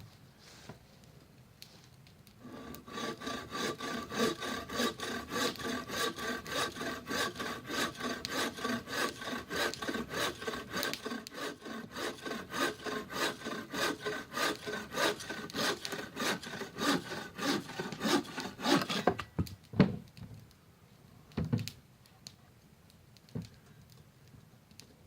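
Hand saw cutting through wood in steady back-and-forth strokes, about two to three a second, for some sixteen seconds. The sawing stops, then come a couple of separate knocks.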